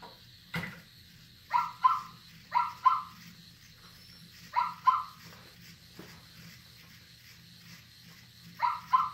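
Zoomer robot toy dog giving short electronic yapping barks, each rising slightly in pitch, in quick pairs: four double barks with long gaps between them, and a fainter single one just after the start.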